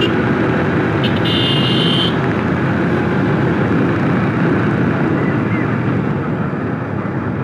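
Motorcycle on the move heard through a phone microphone: steady wind rush over the mic and the engine running. A brief high-pitched tone sounds about a second in.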